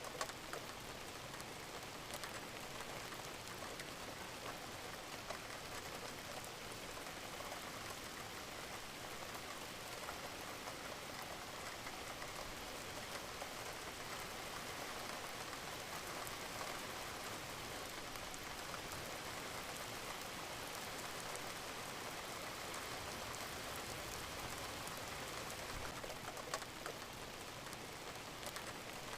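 Steady rain falling, an even hiss with many separate drop ticks.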